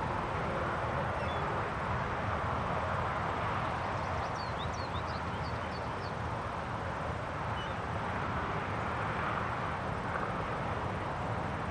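Steady wind blowing across open country, with a few short, high bird chirps in a quick cluster about four to six seconds in.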